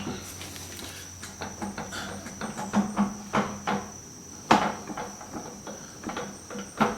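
Rolls-Royce Phantom III rear hub and brake drum assembly being worked off its axle: a string of irregular metal clunks, knocks and scrapes, with a sharp knock about four and a half seconds in and another near the end.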